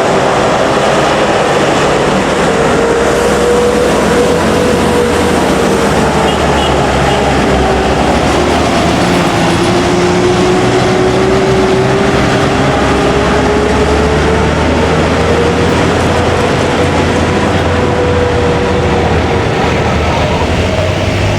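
Steady drone of a moving motor vehicle heard from on board: engine and road noise with a low rumble. A tone in it drifts slowly up and down in pitch.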